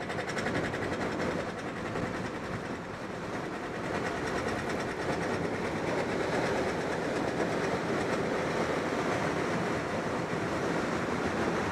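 Glider's takeoff roll under aerotow across a bumpy grass airstrip, heard from inside the cockpit: a continuous rumble and rapid rattle as the wheel runs over the rough ground and the airframe and canopy shake.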